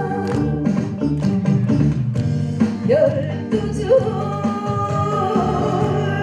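A woman singer sings into a microphone over an amplified backing track of accompaniment music.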